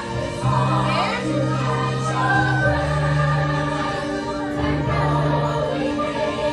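Musical-theatre song: a choir singing held notes over a recorded backing track with a steady bass line.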